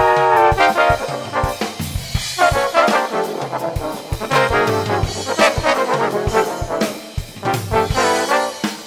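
Jazz trombone playing the lead line over bass and drums. A held note ends about half a second in, followed by quicker phrased notes.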